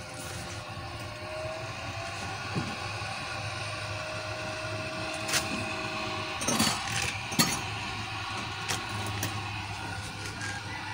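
Small DC blower fan running steadily with a low hum. Around the middle come a few sharp metal clinks and knocks as the steel stove parts are handled.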